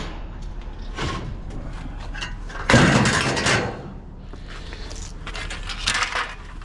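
Scrap metal being handled and shifted on a loaded trailer: a loud burst of clatter lasting almost a second about three seconds in, then lighter clinks near the end as metal bed-frame rails are picked up.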